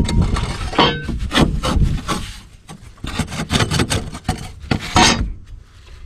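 Rough scraping and rubbing, in a run of irregular strokes, like parts being dragged or worked against each other.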